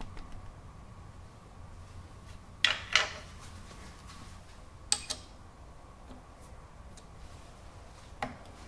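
A few sharp metal clicks from the rotary table's stop and handle as the stop is set: two close together about three seconds in, another about two seconds later and a fainter one near the end, over a faint steady hum.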